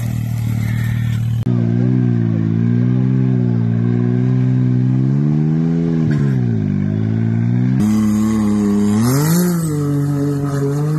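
Off-road vehicle engine running under varying throttle, its pitch rising and falling gently, with a dip in pitch just past the middle and a rise near the end. The sound changes abruptly twice, as if cut between clips.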